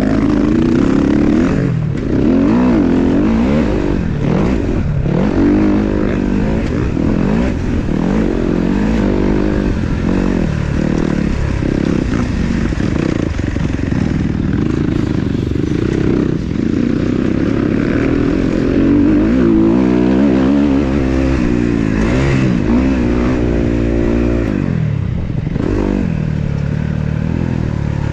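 Motocross dirt bike engines racing, revving up and falling back again and again as the bikes accelerate and shift, with more than one bike heard at times.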